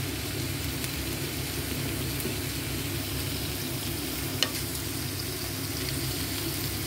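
Cabbage, carrots and green pepper sizzling steadily in a hot pan as they are stirred with a wooden spatula, with a single sharp tap about four and a half seconds in.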